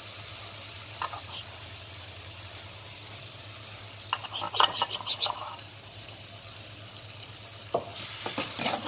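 Onion, tomato and green-chilli masala sizzling gently in a nonstick frying pan, with a slotted spatula clicking and scraping against the pan in short clusters about one second in, from about four to five and a half seconds in, and near the end.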